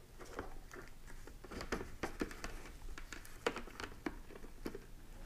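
Faint scattered plastic clicks and taps, with some rustle from gloved hands, as the face shield of an HJC i90 motorcycle helmet is pressed and worked onto its side mount to line up its tab.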